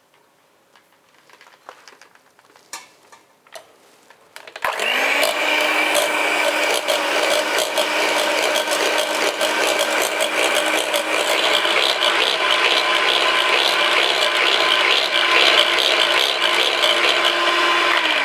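A few light clicks and knocks, then an electric kitchen mixer switched on about four seconds in, running steadily at one high speed. It is switched off at the end, its motor pitch falling as it winds down.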